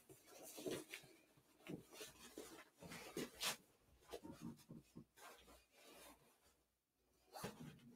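Faint rustling, rubbing and light knocks of a fabric item being handled, in short uneven bursts, with a near-silent gap about two-thirds of the way through.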